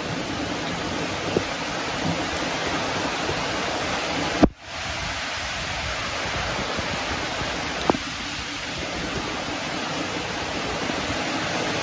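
Heavy tropical-storm rain pouring down in a steady hiss. A sharp knock comes about four and a half seconds in, with a brief dip in the sound right after it, and a lighter tap follows near eight seconds.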